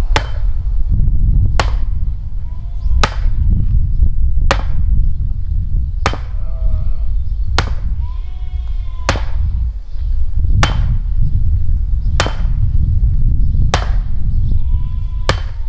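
Heavy, evenly paced blows, about one every second and a half, eleven in all, with short high calls heard between some of them.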